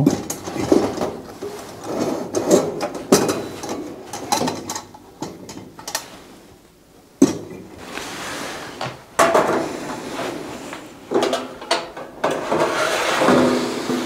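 Metal parts of a Sunwind Corona RX2485 kerosene heater clicking, clattering and scraping as the wick assembly is fitted into the burner and the fuel tank is lifted out, with a sharp knock about seven seconds in.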